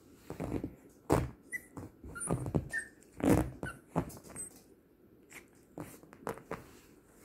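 An adult Yorkshire terrier and a Yorkie puppy play-fighting, with irregular scuffling and mouthing noises and a few brief high squeaks. The loudest scuffles come about a second in and just after three seconds.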